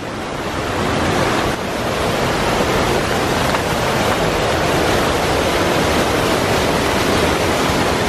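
Water from a pump-fed constructed waterfall, about 8 feet tall and running at roughly 120,000 gallons per hour, pouring over stacked stone into a pool in a steady rush. It grows louder over the first two seconds as the falls come closer, then holds steady.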